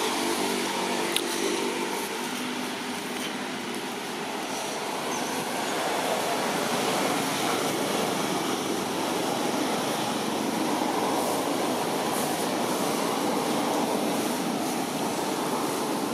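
Steady rushing outdoor background noise with no distinct events, a faint hum fading out in the first couple of seconds and a single brief tick about a second in.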